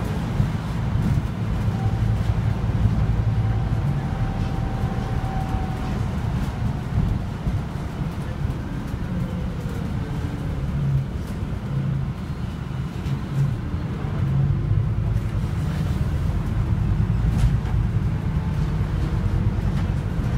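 Scania Citywide LFA articulated city bus driving, heard from inside the passenger cabin: a steady low engine drone with road and tyre noise, and a faint whine a couple of seconds in.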